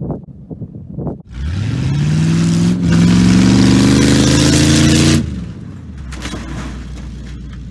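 Vehicle engine revving hard as it backs up, its pitch climbing for about four seconds with a loud hiss over it, then dropping back to a quieter steady running note. A few knocks and rattles come just before the revving.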